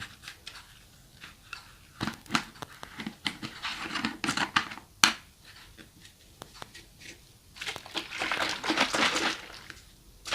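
A lid being fitted onto a large cup with scattered clicks and knocks, then the cup of yogurt, milk, green tea and lime drink shaken hard for about two seconds near the end.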